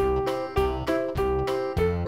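Background music: a keyboard tune over a bass line, with bass notes about every half second.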